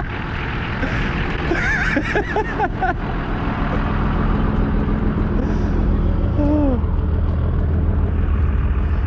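A vehicle engine running steadily, getting louder about four seconds in and then holding at that level.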